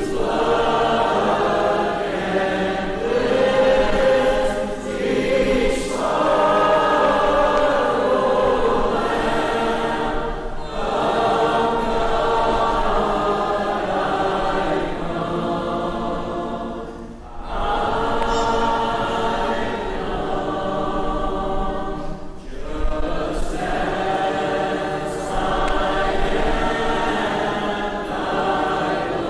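Congregation singing a hymn unaccompanied, many voices together, with short breaks between the lines.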